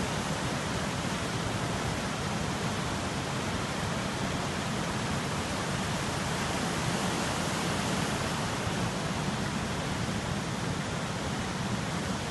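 Muddy floodwater rushing in a fast torrent: a steady, even wash of noise that does not change.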